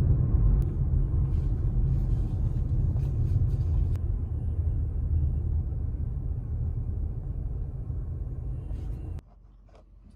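Car being driven, a steady low road rumble as heard from inside the car. It cuts off suddenly about nine seconds in, leaving a much quieter background.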